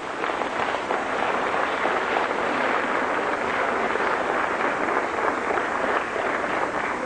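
Audience applauding at the end of an a cappella choir piece: many hands clapping in a dense, steady patter.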